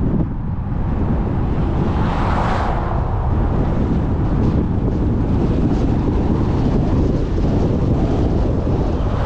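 Steady road and wind noise of a car driving along a highway, heaviest at the low end, with a brief louder rush about two to three seconds in.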